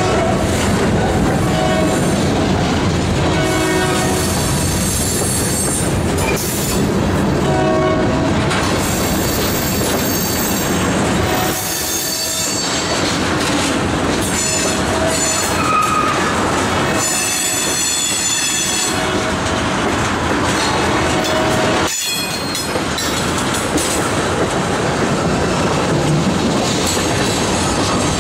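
Loaded freight cars (covered hoppers and tank cars) rolling past close by: a steady heavy rumble of steel wheels on rail, with wheels squealing in short intermittent tones and a few sharp clacks over rail joints.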